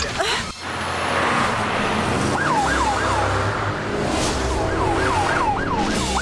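Police car siren sounding in repeated rising-and-falling sweeps that come faster toward the end, over a low vehicle rumble, after a rushing noise in the first two seconds.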